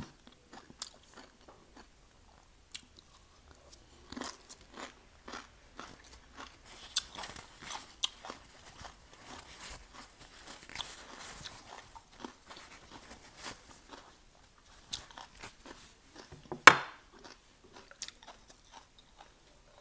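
Chewing and crunching of crisp raw vegetables: irregular crisp crunches, thickest in the middle. There is a single louder knock about three-quarters of the way through.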